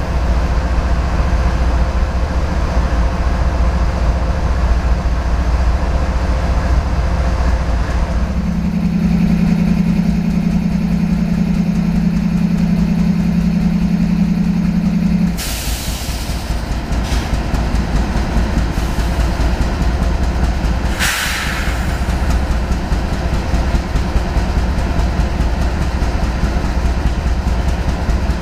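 New GE ES44AC diesel-electric locomotives idling, their GEVO-12 V12 diesels giving a steady low rumble. About eight seconds in a loud steady hum joins for several seconds, then cuts off with a sudden hiss. A second short hiss follows about five seconds later.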